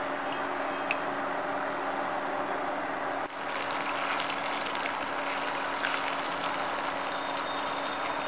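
Coated prawns shallow-frying in hot oil in a pan, a crisp crackling sizzle that becomes louder and denser about three seconds in, over a steady hum.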